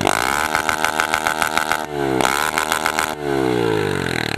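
Honda CG 150 Titan's single-cylinder four-stroke engine revved hard through a straight-through pipe with no muffler: the revs climb, dip sharply about two seconds in, climb again and fall off near the end.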